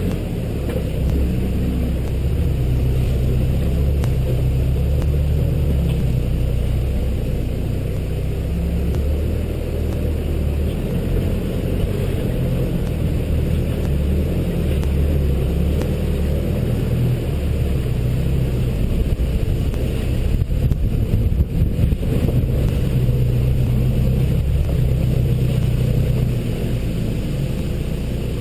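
Toyota Hilux engine running at low revs as the 4WD crawls up a rutted, rocky off-road track, a steady low rumble that rises and falls a little with the throttle. A few knocks and jolts come through about two-thirds of the way in.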